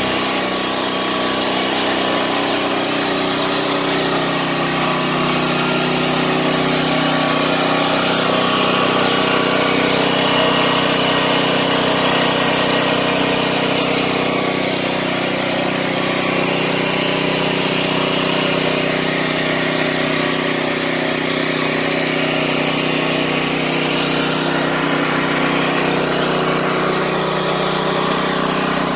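Lowenzahn LZ3500iGS 3.5 kW four-stroke inverter generator running at a steady speed while putting out power.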